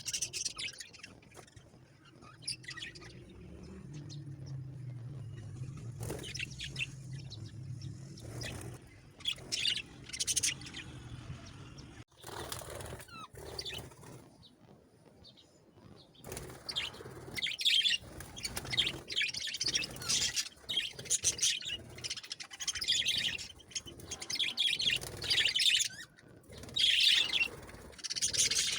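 Pet Australian parrots chirping and calling in short, quick bursts, growing busier and louder in the second half. A low, steady hum sits underneath for several seconds in the first half.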